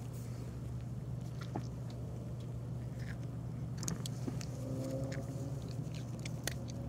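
Cat chewing a small dry treat, a few faint scattered crunches over a steady low hum.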